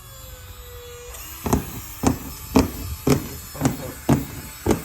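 Seven sharp knocks, about two a second, starting about a second and a half in; the first second has only a faint falling tone.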